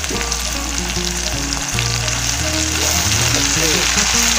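Shredded mushroom and sliced shallots frying in oil in a small pan over a wood fire, with a steady sizzle and small crackles, under background music.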